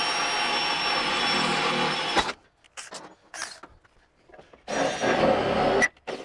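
Small electric motor running steadily with a whine, cutting off with a sharp click about two seconds in. A few light knocks follow, then a second, shorter burst of loud noise about five seconds in.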